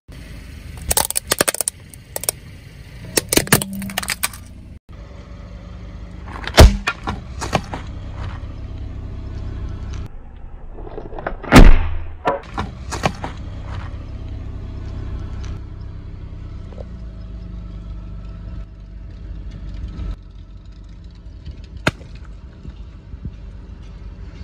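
A car's engine runs low and steady as its tyre rolls over objects on asphalt, with sharp cracks and pops as things are crushed. The loudest is a burst about halfway through, as a watermelon is crushed under the wheel.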